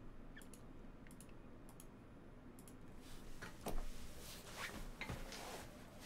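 Faint scattered clicks, joined from about three seconds in by light rustling and handling noise with more clicks and ticks.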